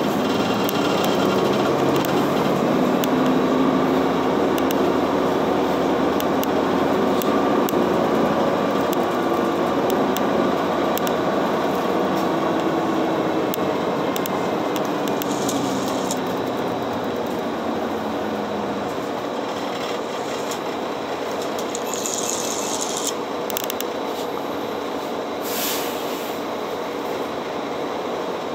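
City bus running, heard from inside the passenger cabin: a steady engine and road rumble whose pitch shifts as it pulls along, louder in the first half and easing off in the second. A few short hisses come near the end.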